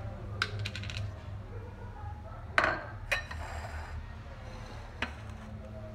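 Dishes and utensils handled on a kitchen counter: a few light clinks, then a louder knock of a dish set down about two and a half seconds in, another soon after, and a single click near the end. A low steady hum runs underneath.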